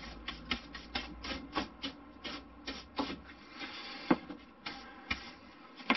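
Hand brush sweeping balsa sanding dust off a plastic cutting mat: quick repeated bristle strokes, about three a second, thinning to a few slower strokes in the second half.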